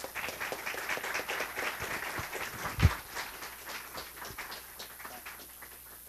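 Audience applause: many hands clapping, thinning out after about five seconds. A single loud thump comes nearly three seconds in.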